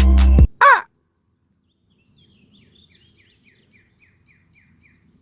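Music cuts off about half a second in, then a crow gives one loud caw. A smaller bird follows with a faint run of short chirps, about three a second.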